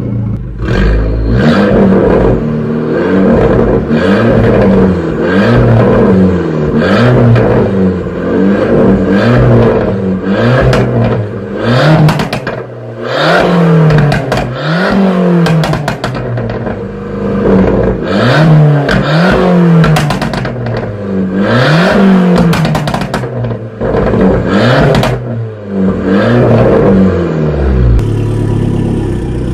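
Abarth 500-series 1.4 turbo four-cylinder with a Record Monza sport exhaust being revved repeatedly at standstill, each rev rising and falling back, with crackles and bangs on the overrun. Near the end it settles to a steady idle.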